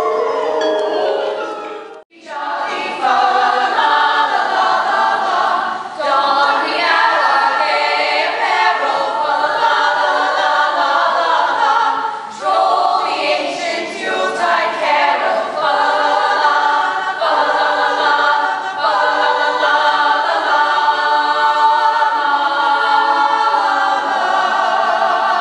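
A chorus of women singing together in harmony on stage, in phrases with short breaths between them. For the first two seconds the music of the previous clip plays, cut off abruptly.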